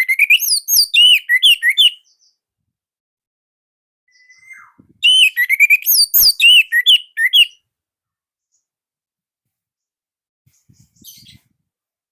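Orange-headed thrush singing: two bursts of rapid, rising-and-falling whistled notes, the second starting about five seconds in.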